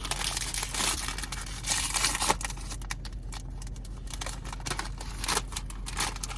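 A snack bag of Quaker Rice Crisps being torn open and crinkled: a dense burst of rustling and tearing for the first couple of seconds, then scattered crackles as the bag is handled.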